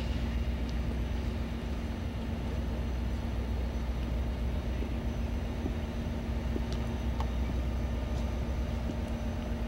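EMD F40PH-2 diesel locomotive with its 16-cylinder two-stroke engine idling, a steady low rumble with a constant hum above it.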